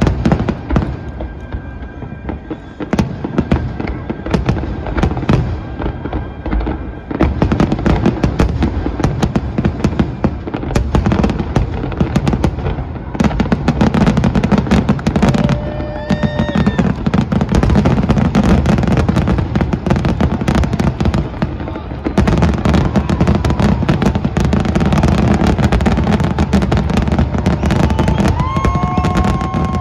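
Aerial fireworks shells bursting in a dense, rapid barrage of overlapping bangs and crackles over a continuous low rumble. The barrage grows louder and thicker about seven seconds in and again about halfway through.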